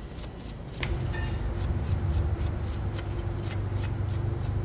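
A metal wire brush scrubbing a brake caliper bracket clean in quick back-and-forth strokes, about three a second. A low steady hum joins about a second in.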